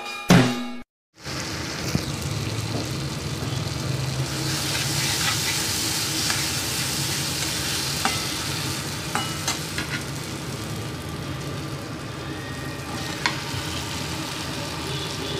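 Tomato, potato and spice masala frying in a metal kadai with a steady sizzle, stirred and scraped with a steel spatula that clinks against the pan a few times.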